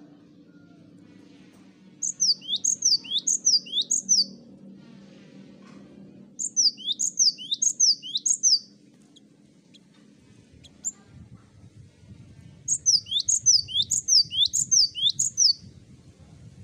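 Cinereous tit (gelatik batu) singing: three bursts, each about two to three seconds long, of quickly repeated high whistled notes that sweep downward.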